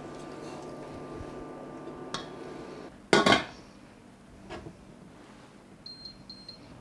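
A glass lid clatters onto a stainless steel pot about three seconds in, just as a steady hum stops. Near the end come two short high beeps from the induction cooktop's touch controls.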